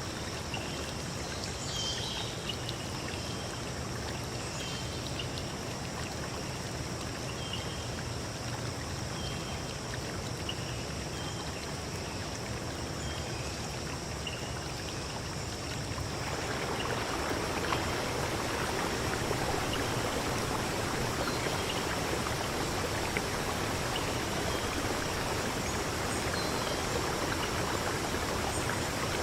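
Flowing stream water, a steady rushing that grows louder about halfway through. Short chirps from a bird repeat every second or two in the first half.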